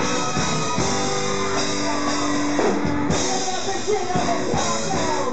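Live rock band playing, with electric guitars, bass and drums under a singing voice.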